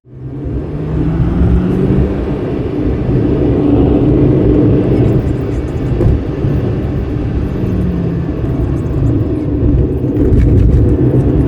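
Steady low rumble of a moving vehicle, with a low hum that drifts gently up and down in pitch.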